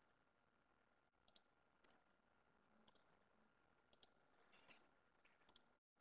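Near silence, broken by a handful of faint, scattered clicks.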